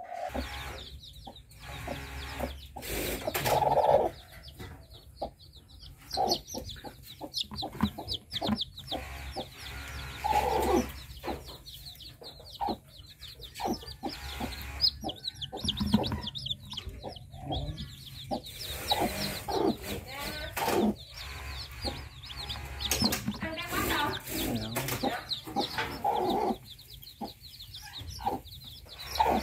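Newly hatched chicks peeping continuously in rapid, high chirps, mixed with lower clucking calls and a few knocks from handling.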